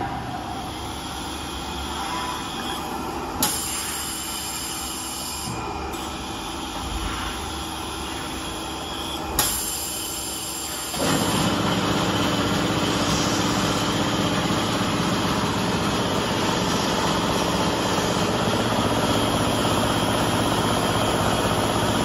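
Semi-automatic air bottle washer running with a steady mechanical hum, with two sharp clicks. About halfway through, a louder, even rush of blowing air starts and holds.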